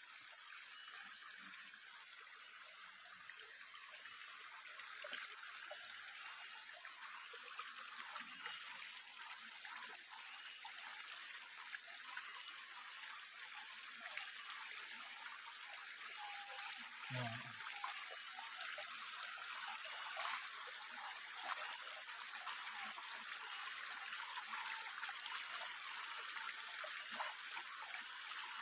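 Shallow rocky stream trickling steadily over stones, growing slightly louder, with a few faint clicks and small splashes as hands grope under the stones in the water.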